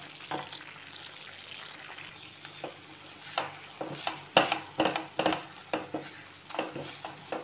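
Silicone spatula stirring and scraping thick, nearly dry khoya around a nonstick kadhai on high flame. The strokes are irregular over a steady hiss, and get louder and quicker about halfway through. The milk solids are at the drying stage, pulling away from the pan.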